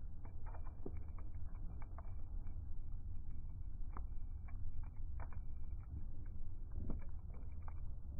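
Campfire burning: wood crackling with irregular sharp pops and snaps over a steady low rumble of the flames.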